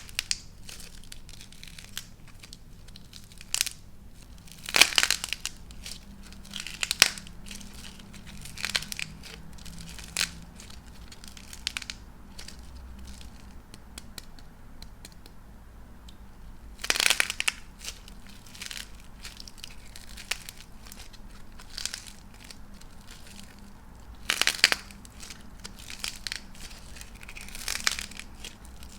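Dried star-shaped clay being cracked and crushed by hand: scattered sharp crackles, with louder bursts of crunching about five, seventeen and twenty-four seconds in.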